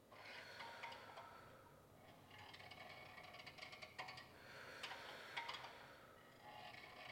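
Near silence: slow, soft breathing in swells a second or two long, with a few faint clicks around the middle.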